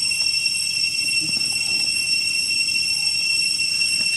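A steady, high-pitched whine holding one pitch with higher overtones, unchanging throughout; nothing else stands out.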